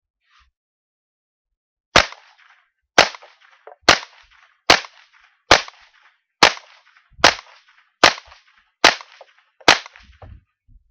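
Savage 64F semi-automatic .22 LR rifle fired ten times in a steady string, a little under one shot a second, emptying its ten-round magazine.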